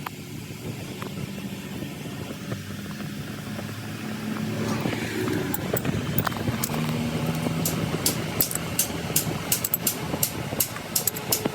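A motor running steadily with a faint hum, growing a little louder partway through, joined in the second half by a rapid run of sharp clicks.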